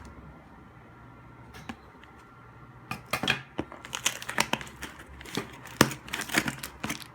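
Plastic and cardboard packaging crinkling and rustling as a parcel is cut open with scissors. The handling is quiet at first and turns into a run of sharp crackles about three seconds in.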